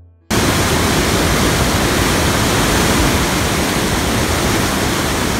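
Loud, steady rush of turbulent whitewater in the Kern River, running high with snowmelt; it starts abruptly just after the beginning.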